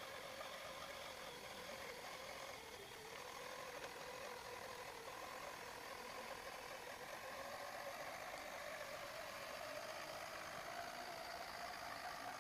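Electric drive motor and gearbox of a six-wheeled RC model trial truck whining steadily as it crawls uphill over grass, the whine rising in pitch near the end.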